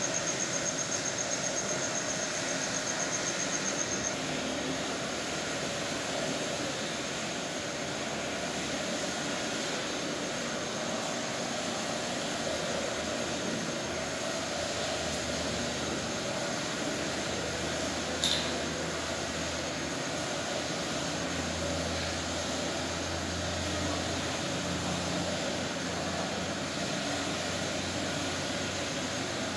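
Steady background hiss and hum of the cattle shed, with a thin, high, rapidly pulsing tone for the first four seconds and a single sharp click about eighteen seconds in. A low hum rises in the second half.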